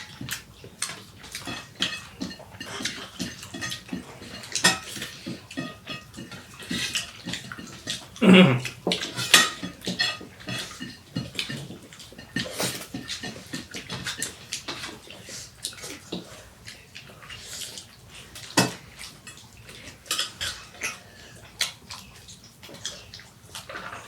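Fast eating from plates: repeated clinks and scrapes on the dishes with wet chewing and mouth noises, and one short louder throat sound about eight seconds in.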